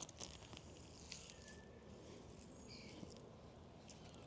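Near silence: faint outdoor background with a few soft clicks and rustles.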